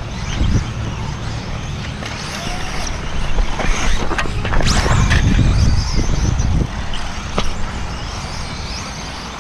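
Radio-controlled cars running on a dirt off-road track, over a steady low rumble that grows louder from about three and a half to six and a half seconds in. A few short clatters come as an RC short-course truck is picked up by hand about four seconds in.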